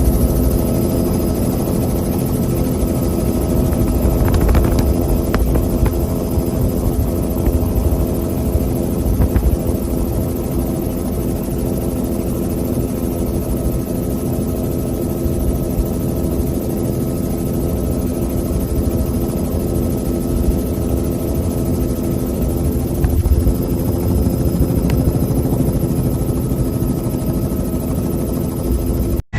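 Helicopter running steadily overhead or around the microphone: a constant low rumble with a steady engine hum.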